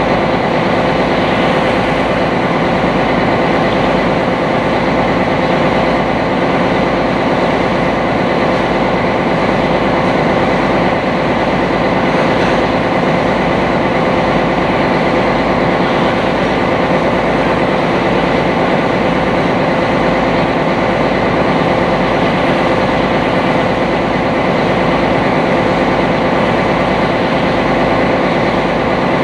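A sightseeing boat's engine running steadily while under way, heard on board as a loud, constant drone with a steady hum over the rumble.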